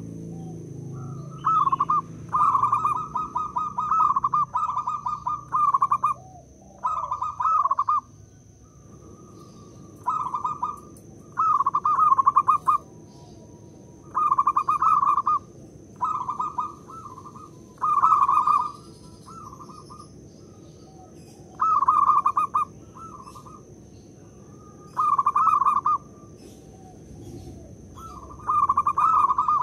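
Zebra dove (perkutut) singing its staccato, rapidly pulsed cooing song in about a dozen phrases of roughly a second each, separated by short pauses.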